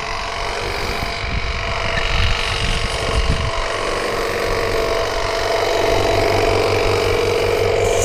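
A motor or engine running steadily, its low throb settling into an even rhythm about three and a half seconds in.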